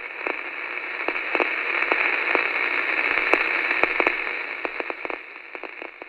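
Radio static: a narrow, tinny hiss scattered with crackles and clicks, swelling up over the first three seconds and then fading away.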